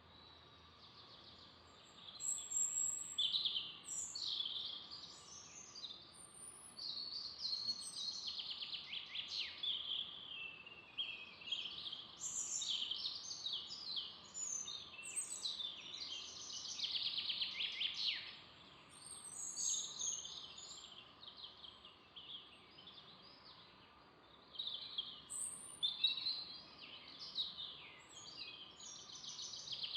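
Forest songbirds singing: many quick high chirps and trills, often overlapping, starting about two seconds in. Beneath them is faint steady background noise.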